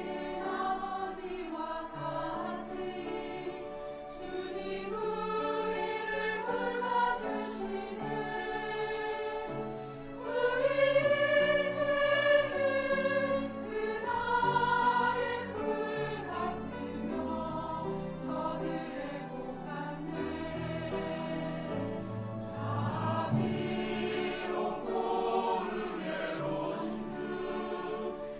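Church choir singing a sacred anthem in Korean, many voices holding sustained chords that change from note to note, swelling loudest about a third of the way through.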